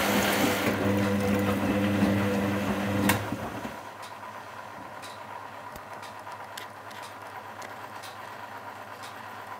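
Constructa Contura front-loading washing machine early in its 60°C wash: a loud electric hum cuts off with a click about three seconds in, leaving a quieter running sound with faint, irregular ticks.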